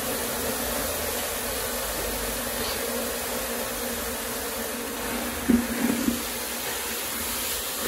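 Baking soda and vinegar solution fizzing in a plastic bucket: a steady hiss. A couple of brief knocks about five and a half seconds in.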